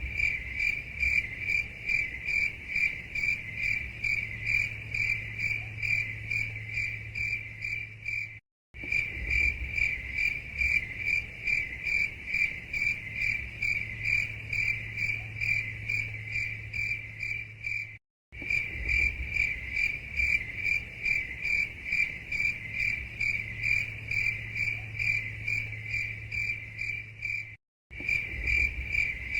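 Crickets chirping in a steady rhythm, about three chirps a second, cutting out completely for a split second three times.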